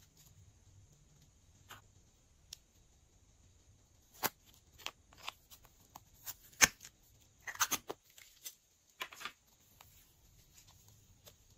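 Sharp plastic clicks and snaps as a small plastic pot of modelling clay is handled and its lid popped open, a cluster of them through the middle with the loudest a little past halfway, amid faint handling of soft clay.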